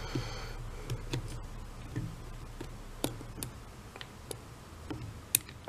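Light, irregular clicks and ticks of small plastic and metal parts being handled as a replacement brush card with spring-loaded carbon brushes is worked into place over a cordless impact driver's motor commutator.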